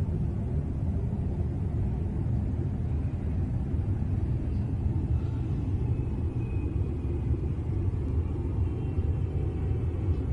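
A steady low rumbling drone, with faint thin high tones about halfway through, of the kind circulated as the unexplained 'strange sounds' heard around the world in 2012.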